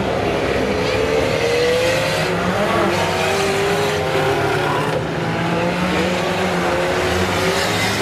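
Several racing car engines running and revving around the track at once, their overlapping notes rising and falling as the cars accelerate and lift.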